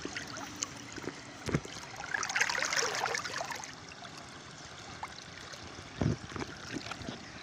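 River current gurgling and sloshing around a camera held half under the water surface, louder for about a second a little past two seconds in. Two dull knocks, about one and a half and six seconds in.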